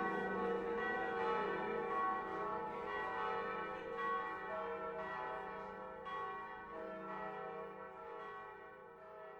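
Church bells ringing: overlapping strikes that ring on and slowly fade away.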